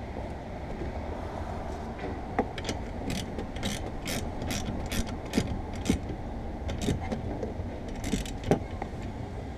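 Socket ratchet wrench clicking in short strokes as it tightens the pivot nut of a windshield wiper arm, starting about two seconds in at roughly two clicks a second, over a steady low hum.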